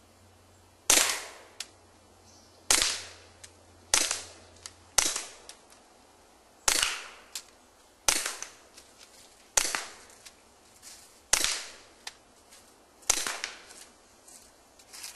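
Walther P22 pistol fitted with a Gemtech Outback II suppressor firing subsonic .22 LR rounds: about nine suppressed shots, each a sharp crack with a short tail, one every one to two seconds.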